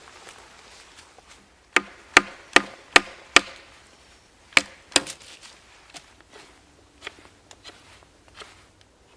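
Chopping blows into wood: five sharp strokes in quick succession about every 0.4 seconds, then two more after a short pause, followed by a few lighter taps.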